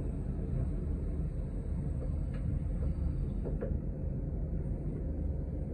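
Inside a TTC city bus in motion: a steady low rumble of the engine and road. Two or three faint clicks or rattles about halfway through.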